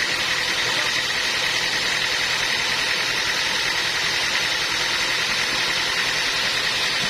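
Sawmill machinery running steadily: a constant mechanical drone with a steady high whine and no change in load.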